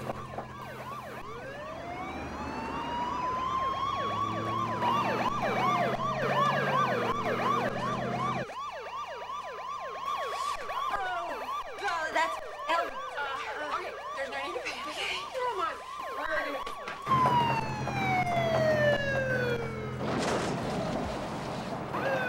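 Police car sirens sounding together: a slow wail rising and falling over a few seconds, overlapped by a fast yelp sweeping about three times a second.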